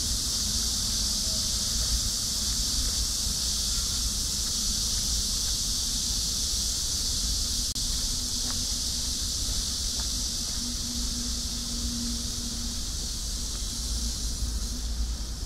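Steady, shrill chorus of insects, a high continuous hiss, over a low rumble.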